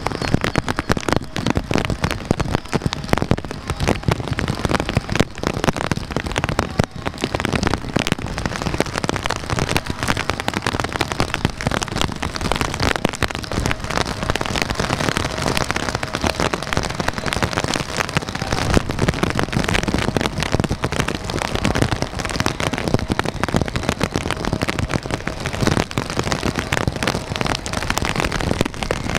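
Heavy rain falling hard, with countless drops ticking sharply on a nearby surface close to the microphone, over a dense steady hiss of rain.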